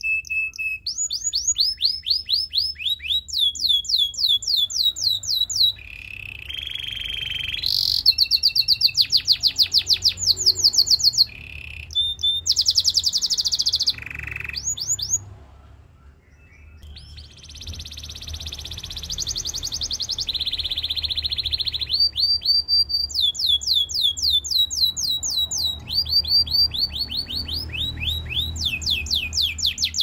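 Canary singing: long phrases of rapid trills of quick falling notes, mixed with steadier rolling notes, with a short pause about halfway through before the song picks up again.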